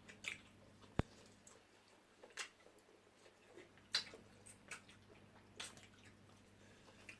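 Faint, scattered wet mouth sounds of people eating fufu and egusi pepper soup: chewing, lip smacks and small clicks, with one sharp click about a second in.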